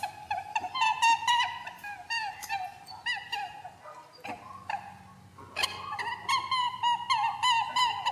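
A chorus of bird-like chirps and squeaks: many short pitched calls, rapid and overlapping. They thin out around four to five seconds in and then pick up again.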